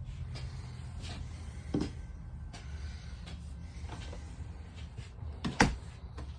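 A door or cabinet door in a travel trailer's bathroom being handled: two knocks, a light one about two seconds in and a sharper, louder one near the end, over a steady low hum.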